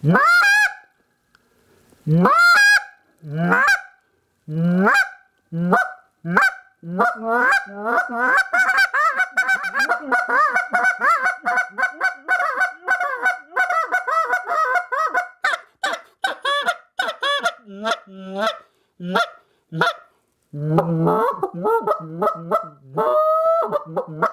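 Lodge Creek Calls "Mayhem" goose call blown by hand in a calling demo: a few long, loud separate notes first, then a fast unbroken run of short honking notes for several seconds, thinning to single notes, with lower, deeper notes near the end.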